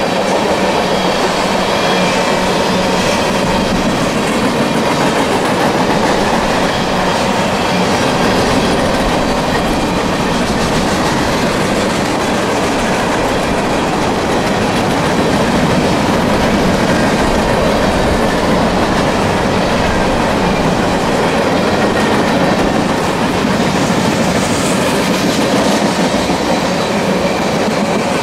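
Mixed manifest freight train passing close by, its cars' steel wheels rolling and clacking along the rails in a loud, steady din.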